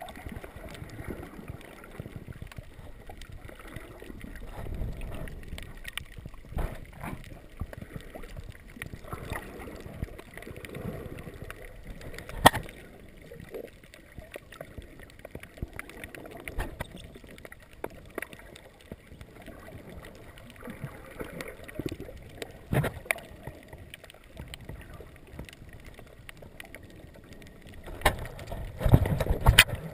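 Muffled underwater sound through a GoPro camera's waterproof housing: low sloshing of moving water, with scattered sharp clicks and knocks. The loudest click comes about twelve seconds in, and a denser burst of knocks comes near the end.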